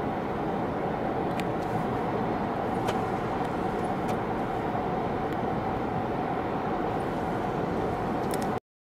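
Steady road and engine noise heard inside a moving car, with a faint steady hum and a few light ticks. The sound cuts off suddenly near the end.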